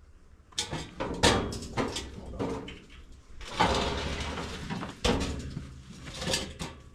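Metal knocks, clunks and scraping as heavy VW Beetle parts are moved by hand: several sharp knocks in the first two seconds, a longer scraping rush in the middle, then a single sharp knock.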